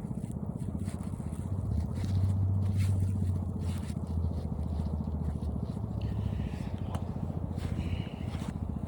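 A motor vehicle's engine running steadily with a low, even rumble, with a few faint clicks and scrapes over it.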